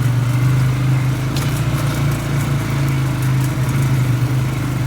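Polaris Sportsman 570 ATV engine running steadily as the ATV is ridden along a trail, with a few light ticks over it.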